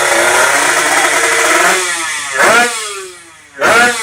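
Two-stroke underbone drag-race motorcycles running loud at high revs, then two sharp throttle blips, one about two and a half seconds in and one near the end, each rising and falling in pitch.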